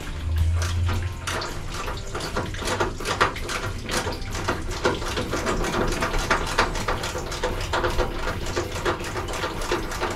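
Coolant draining out of a 1971 Ford F100's radiator with a steady splashing trickle, over irregular clicks and clinks of hand tools working the radiator bolts.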